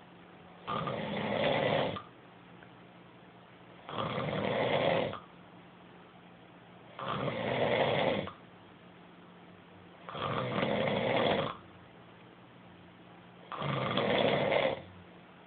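A sleeping person snoring: five loud, rasping snores about a second long, one every three seconds or so. A faint steady hum runs between them.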